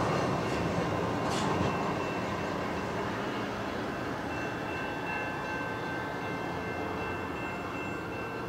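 VIA Rail Siemens Venture passenger train moving, a steady rail rumble with a few faint high steady tones that slowly fades.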